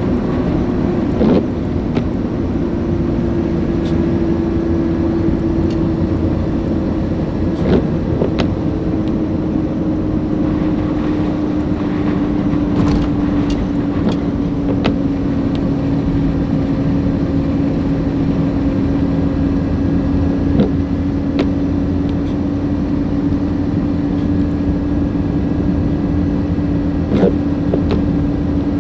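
Car driving: steady engine and road noise, with a hum that slowly drops in pitch over the stretch and a few faint clicks.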